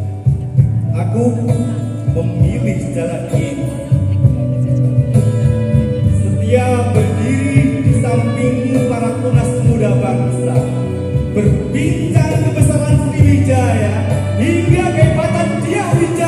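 Live band music with a singer, played through loudspeakers in a large hall: a steady bass line under a sung melody.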